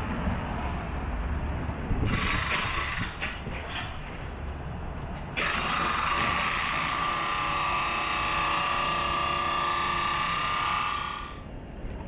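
Street traffic rumbles as a car passes. Then a power tool runs in two spells: a hissing burst of about three seconds, then a loud, steady high whine of about six seconds that cuts off abruptly near the end.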